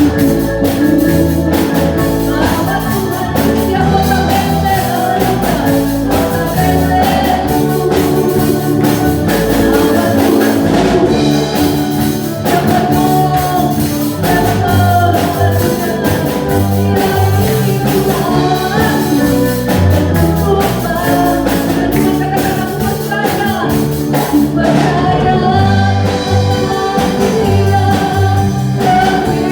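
Indonesian Christian worship song: singing over band accompaniment with a steady beat.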